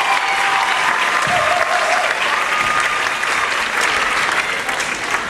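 Audience applauding, a dense clapping that eases off near the end.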